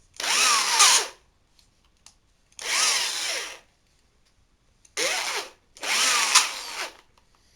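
Ritm DEU-900 electric drill, just repaired, run in four short bursts on test. Each time the motor's whine climbs as it spins up and drops as the trigger is released.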